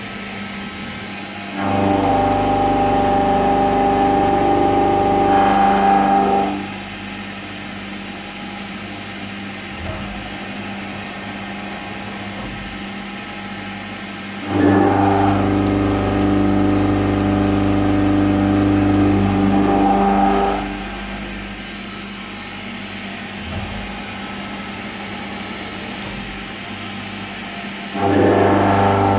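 CNC vertical milling machine running its program, a face mill cutting the workpiece in three passes. Each pass is a loud, steady, pitched whine lasting several seconds and starting abruptly, with the machine's quieter steady hum between passes.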